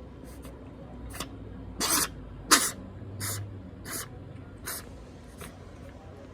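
Domestic cat sneezing about ten times in quick succession, short sharp bursts about every second, the loudest two about two seconds in. The owner puts the sneezing down to dried mucus blocking his nostrils.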